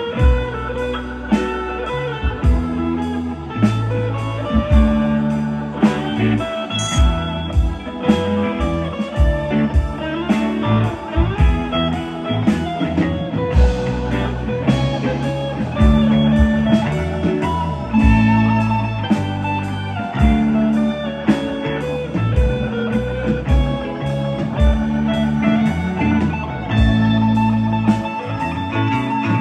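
Live band with electric guitars, bass, drums and keyboards playing an instrumental passage, with a sustained lead guitar line that bends in pitch over a steady beat.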